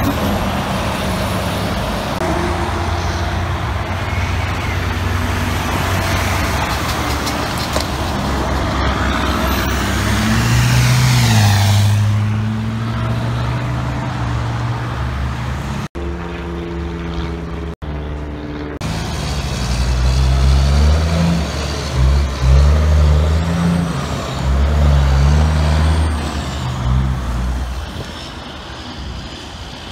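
Heavy diesel trucks on a highway: a truck passes close with loud tyre and engine noise and a falling whine, then after a cut a loaded dump truck's diesel engine pulls away, climbing in pitch and dropping back several times as it shifts up through the gears.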